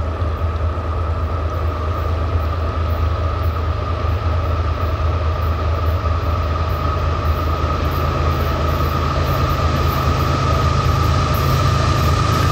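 Union Pacific diesel locomotives hauling a freight train as it approaches: a steady deep engine rumble with a steady high whine above it, growing slightly louder as the train nears.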